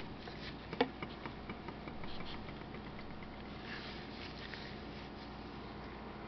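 Faint handling noise from a flat iron being moved about: one light knock about a second in, then a few soft ticks and rustles over a steady low hiss.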